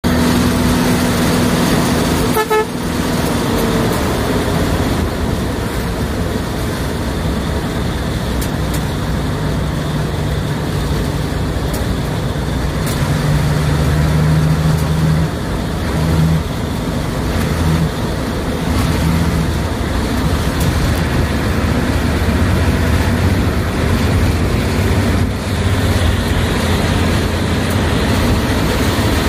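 A bus engine running with road noise, heard from inside the cab as the bus drives along. The engine note swells and drops several times midway through.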